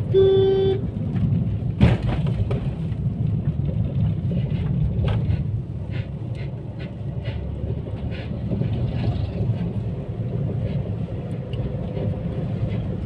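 Car driving along a road, heard from inside the cabin: a steady low rumble of engine and tyres. A short pitched beep sounds right at the start, and a single sharp knock comes about two seconds in.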